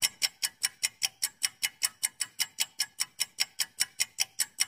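Countdown-timer ticking sound effect: sharp, bright clock-like ticks at an even, fast pace of about five a second.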